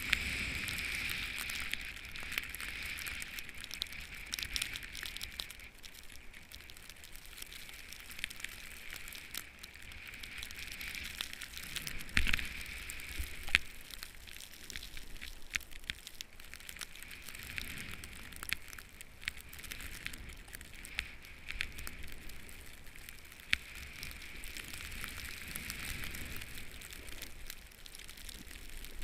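Snowboard sliding through fresh powder: a steady hiss with dense crackling of snow, and a couple of sharp knocks about halfway through.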